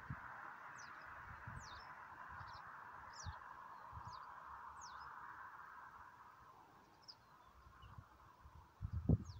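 Small birds calling: repeated short, high chirps that fall quickly in pitch, over a faint steady hum that fades about two-thirds of the way through. Soft low thumps run underneath, with a louder one near the end.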